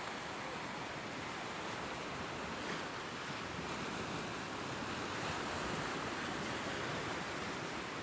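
Ocean surf, waves breaking and washing in as a steady rushing noise that swells and eases gently.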